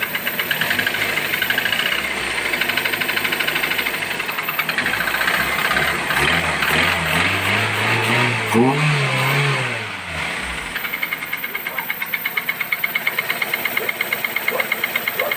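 Toyota 1SZ-FE 1.0-litre inline-four running with a fast, rhythmic metallic knock, revved up for a few seconds in the middle and then settling back to idle. The owner places the knock somewhere around the timing end, the oil pump or a piston; teardown found the number-four piston scored and nearly seized.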